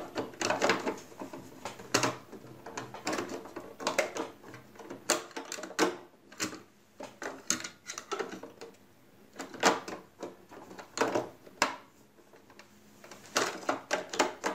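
Irregular plastic clicks, knocks and rattles as the white plastic cover panel of a Singer Promise 1408 sewing machine is handled and pressed into place against the machine's plastic housing.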